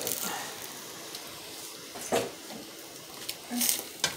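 A few scattered knocks and clinks of a big cooking spoon against a pot: one about two seconds in and two more near the end.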